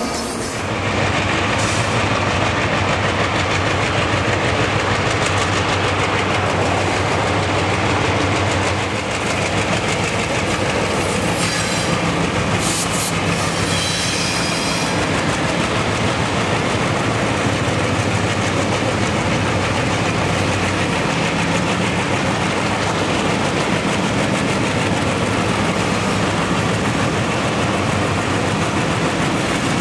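Alco diesel-electric locomotives passing close with a freight train: a steady engine drone with rumble and clatter from the train. About nine seconds in the sound changes to another Alco-led train with a higher engine note, and a brief high squeal comes around twelve to fourteen seconds in.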